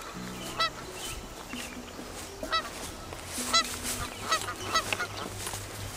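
A bird giving several short, honk-like calls, irregularly spaced, with a faint low hum beneath.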